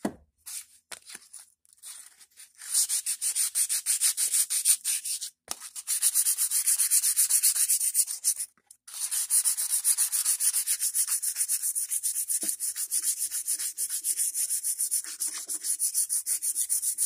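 Hand sanding the old wooden handle of a small ball-peen hammer with 220-grit sandpaper: quick back-and-forth rubbing strokes, several a second. A few scattered scrapes come first, the steady sanding starts about three seconds in, and there is a brief pause near the middle.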